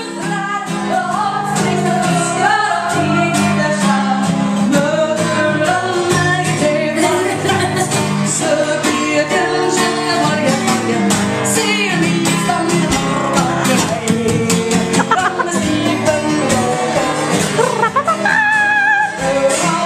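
A woman singing a song while strumming an acoustic guitar in a steady rhythm.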